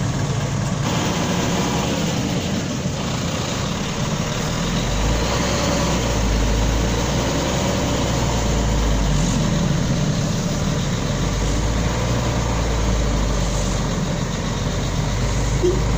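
Heavy diesel engines of a coach bus and a cargo truck idling, a steady low rumble that grows deeper and a little louder about five seconds in.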